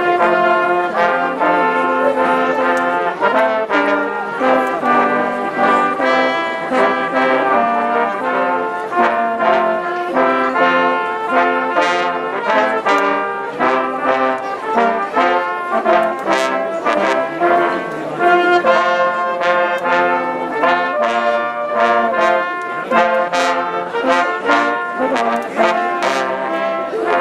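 Brass band playing a tune, trombones and trumpets together, with a steady rhythm of sharply attacked notes.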